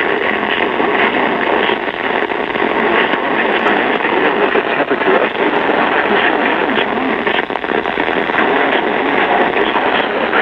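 Radio static: a loud, steady hiss of noise from a radio receiver, thin and muffled as radio audio is.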